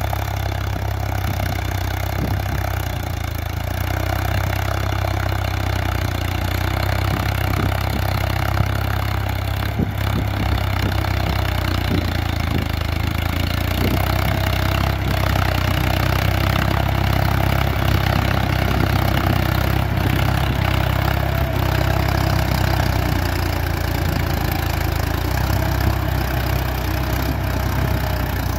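Swaraj 963 FE tractor's three-cylinder diesel engine running steadily under load while pulling a two-bottom reversible mouldboard plough through dry soil. Its deep drone grows slightly louder after a few seconds as the tractor comes closer, then holds.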